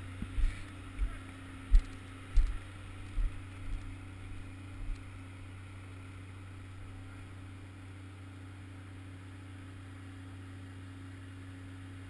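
A steady low hum over a faint rush that fits creek water, with several short low thumps on the microphone during the first five seconds.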